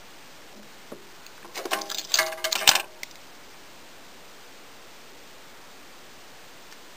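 A short clatter and jingle of small hard objects being picked up and handled, lasting about a second and a half, a little over a second in. Otherwise a steady low hiss.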